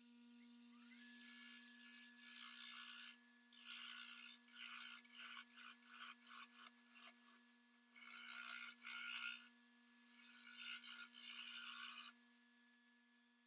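Wood being sanded or rasped by hand in hissy strokes: a few long passes, a run of quick short strokes about two a second, then long passes again, stopping shortly before the end. Under it a steady hum, joined about a second in by a tone that rises and then holds.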